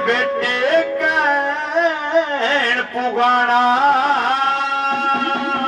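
Male folk singer singing a Haryanvi ragni live through a microphone: a wavering, ornamented melodic line that settles into a long held note from about halfway through, over steady instrumental accompaniment.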